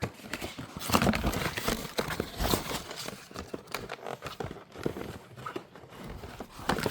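Irregular knocks, taps and rustling of things being handled, with no steady rhythm.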